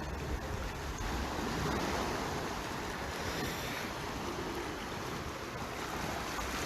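Sea waves washing onto the shore, a steady surf hiss that swells slightly around two seconds in, with some wind rumbling on the microphone.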